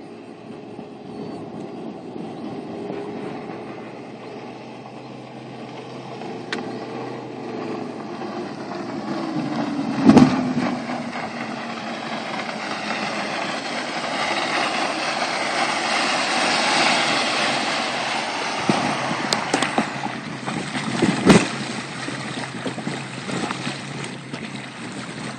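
Yamaha 200 HPDI two-stroke outboard running on a flats boat as it comes closer. Its engine note drops in pitch partway through, and the engine and water-spray noise then swell and ease off. Two sharp thumps, one about ten seconds in, the loudest moment, and another later on.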